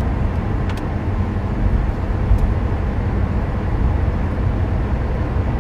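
Steady cabin noise of a Nissan car driving on a highway: a low road and engine rumble with a fainter hiss over it.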